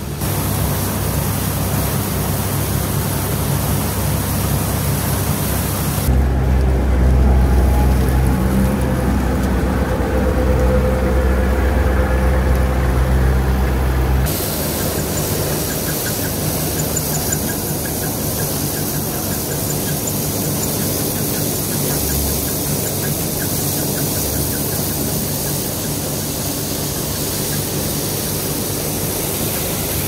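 Old Allis-Chalmers combine harvester running while cutting wheat: a steady engine drone with the threshing machinery, and a squeak from somewhere in the machine. The low drone grows heavier for several seconds partway through, then settles back.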